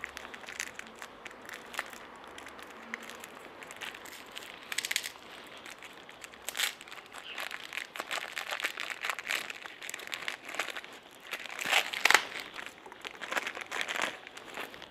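Small clear plastic bag of screws crinkling as it is handled and pulled open, in irregular crackles with a few louder bursts, the loudest about twelve seconds in.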